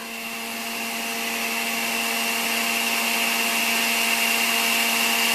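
Electric juicer's motor running with a steady hum and high whine as apple pieces are pressed down its feed chute and shredded. It grows slightly louder over the first couple of seconds.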